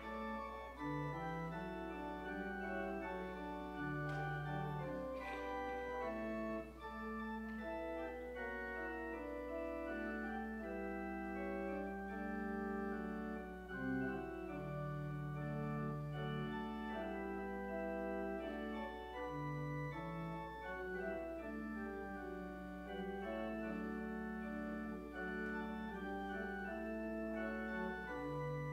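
Church organ playing slow, sustained chords with a moving bass line, over a steady low hum.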